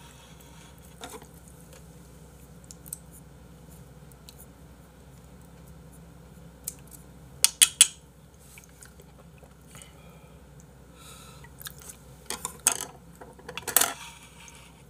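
Chopsticks and a spoon clinking and scraping against a soup bowl as someone eats, in scattered short clicks: three sharp clinks close together about seven and a half seconds in and a busier run of clinks near the end.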